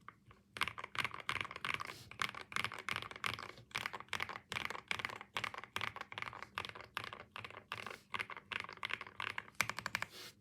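Continuous typing on a Sugar65 mechanical keyboard with Durock POM Piano switches and cherry-profile keycaps: many keystrokes clicking in quick, uneven succession. It starts after a brief pause, with a fast run of strokes near the end.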